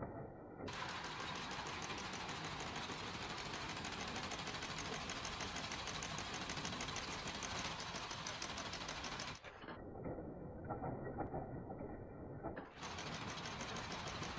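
Wire nail-making machine running at speed: a rapid, even mechanical clatter.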